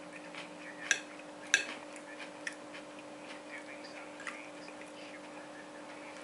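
Metal fork and spoon clinking and scraping against a ceramic plate of rice. There are two sharp clinks about a second and a second and a half in, then a few lighter taps, over a steady low hum.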